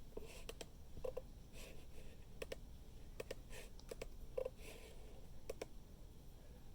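Faint, irregular clicks of computer keyboard keys, one or two strokes at a time with pauses between them.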